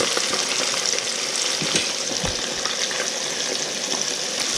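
Small whole bream (bluegill and sunfish) frying in hot oil in a crowded pan: a steady sizzle with scattered crackles and a few light knocks.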